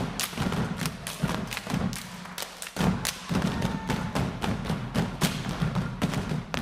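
Step team stepping: rhythmic stomps on a wooden stage floor mixed with hand claps and body slaps, with a short break about two and a half seconds in before the beat picks up again.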